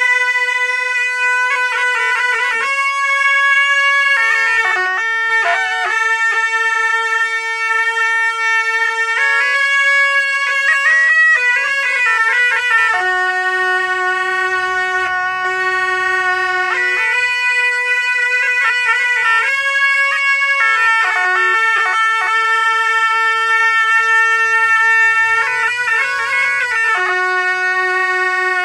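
A pair of gyalings, Tibetan double-reed horns, playing a Buddhist melody with a nasal, reedy tone. Long notes are held for several seconds, and the pitch steps between a few notes with quick trilling ornaments at each change.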